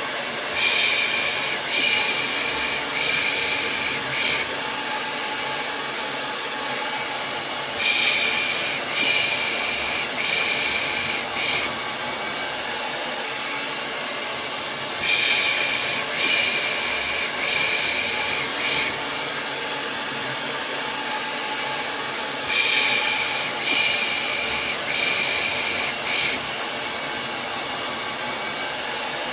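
Hair dryer running steadily with a hiss and a faint whine. Every seven or eight seconds it is overlaid by a group of four rhythmic 'pış pış' shushing sounds, about one a second, the kind used to calm a baby to sleep.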